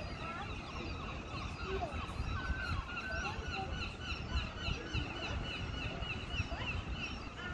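Birds calling in many short chirps, with a rapid run of repeated notes in the middle, over a low rumble.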